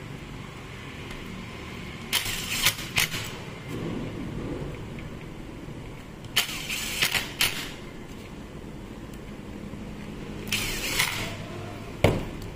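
Cordless impact driver running in three short bursts of about a second each, undoing the gear-housing screws of an angle grinder, followed by a single sharp knock near the end.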